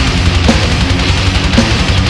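Black/death metal song: distorted electric guitars over dense, fast drumming, loud and unbroken.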